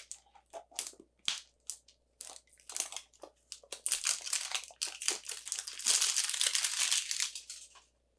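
Crinkling and crackling of a wrapper being worked off a small plastic toy capsule by hand: a run of short, separate crackles, then a dense, continuous crinkle from about four seconds in until just before the end.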